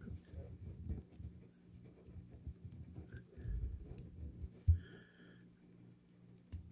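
Hands handling a plastic G.I. Joe Classified action figure and its accessories: small clicks and scratches of plastic parts, with several low thumps against the table, the strongest just before five seconds in.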